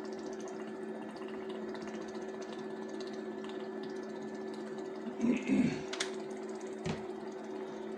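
Steady electrical hum with two low, even tones from a portable induction cooker running under a cooking pot. About five seconds in there is a short clatter, followed by two sharp clicks.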